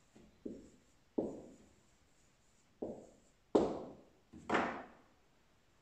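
Marker tapping and knocking against a whiteboard: about six sharp knocks, the loudest two about three and a half and four and a half seconds in.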